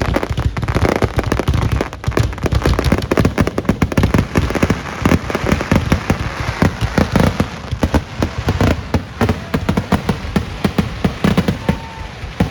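Fireworks going off in rapid succession: dense, overlapping bangs and crackles with no let-up.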